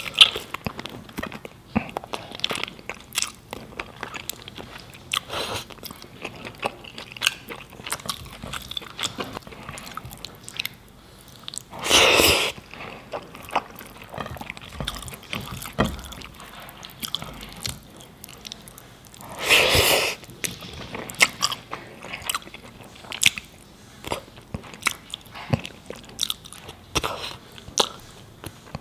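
Close-miked eating with the fingers: chewing soft biryani rice in curry sauce, with many small wet clicks and smacks from the mouth and fingers. Twice, about twelve seconds in and again about eight seconds later, comes a louder sound lasting under a second.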